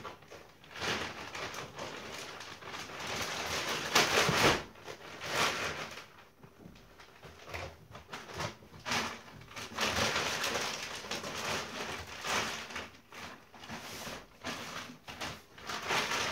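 Thick plastic film wrapped round a mattress crinkling and rustling in irregular bursts as it is handled and pulled at.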